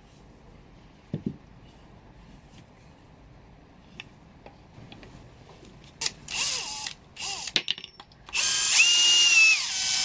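Cordless drill-driver driving screws into the wooden frame parts of a loom: two short bursts of the motor about six and seven seconds in, then a longer, louder run near the end, its pitch rising and then falling. A single knock about a second in.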